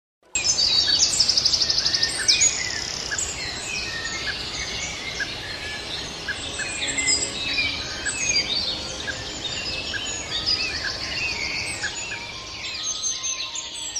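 Many birds chirping and calling at once over a steady outdoor hiss, starting suddenly just after the start, with fast, high trills standing out now and then.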